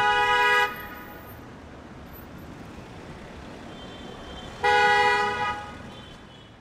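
Car horn honking twice, two long steady blasts about five seconds apart, over steady street traffic noise; the second blast fades out more slowly.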